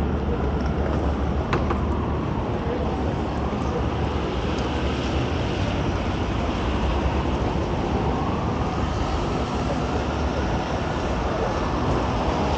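City street traffic on a wet night: a steady wash of passing vehicles and tyre noise. There is one sharp click about one and a half seconds in.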